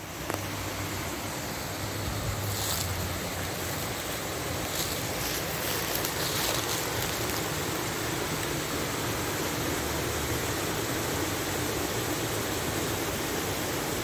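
Stream water spilling over a low concrete weir and falling into the channel below: a steady rush of water.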